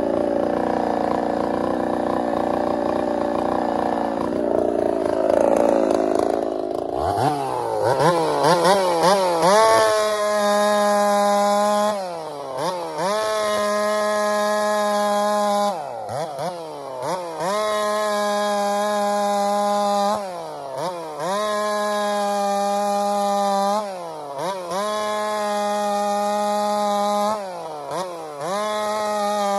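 Ported big-bore Holtzfforma 372 two-stroke chainsaw cutting rounds off a log at full throttle. It opens with a rough, wavering sound; about seven seconds in the saw revs up, then runs steady and loud under load through each cut, its pitch dipping briefly as the throttle is let off between cuts, about every four seconds.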